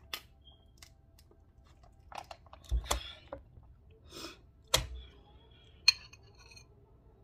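Metal spoon clinking and scraping in a glass bowl of gumbo and rice, the sharpest clink near the end ringing briefly. Scattered clicks, two dull thumps and a short breathy rush come in between.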